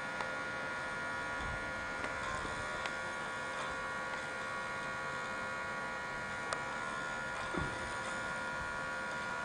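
Steady electrical hum and whine made of several fixed tones, with a few faint ticks, the clearest about six and a half seconds in.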